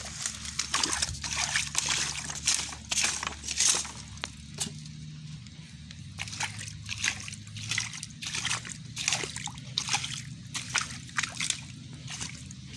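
Shallow muddy water sloshing and splashing in quick, irregular strokes as a person wades through it and gropes along the bottom.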